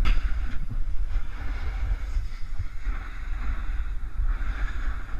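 Wind buffeting the camera's microphone with a heavy low rumble, over the hiss and scrape of snowboard edges on packed snow that swells with each turn.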